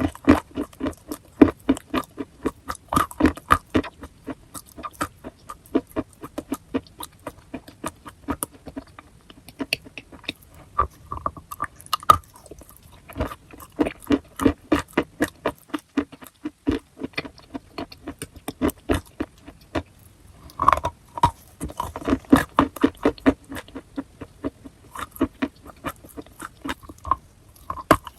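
Chalk being chewed close to the microphone: crisp crunching and grinding bites, several a second, with a brief pause a little past halfway.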